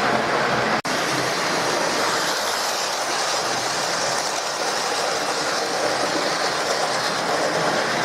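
Hornby OO gauge model train running steadily on the track: a continuous whirr and rumble of motor and wheels on the rails. The sound cuts out for an instant just under a second in, then carries on.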